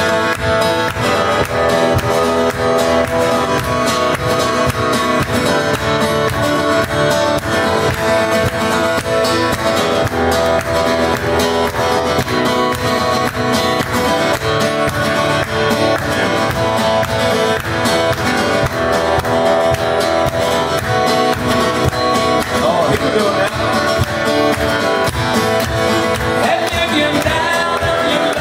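Acoustic guitar strummed steadily by a solo performer. A man's singing voice comes in near the end.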